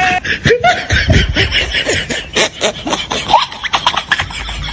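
A song cuts off abruptly just at the start, followed by a choppy, fast-cut laughter sound effect: quick giggles broken up by clicks.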